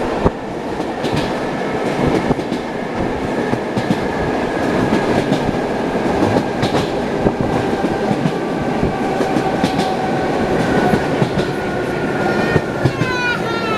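Running noise inside an ED9M electric multiple unit: the wheels knock over rail joints every second or two, with a steady high whine under the rumble. Near the end a pitched, gliding sound comes in over it.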